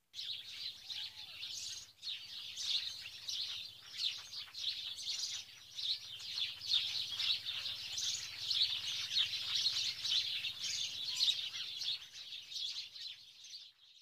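Many birds chirping at once in a dense, continuous twitter that starts abruptly and fades out near the end.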